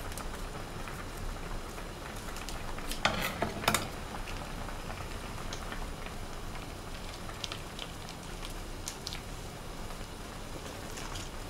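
Pot of udon boiling steadily on a portable butane gas stove, with two sharp knocks about three seconds in.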